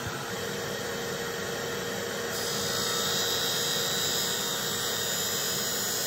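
Bench shaft cutter's motor and the shop dust extractor running with a steady whine and hiss; about two seconds in a harsher hiss sets in and holds as the abrasive cut-off wheel grinds into a steel golf shaft.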